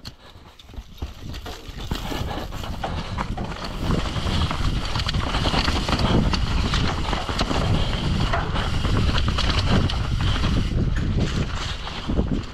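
Mountain bike descending a rough dirt trail at speed: tyres on dirt and rock with the chain and frame rattling and clattering, building up over the first few seconds.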